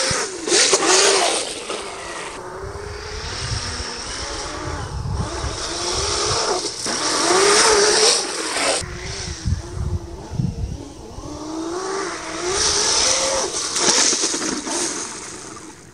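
1/5-scale RC snowmobile's 550-class brushless electric motor whining, rising and falling in pitch several times as the throttle is worked. Its studded track hisses through wet snow and slush.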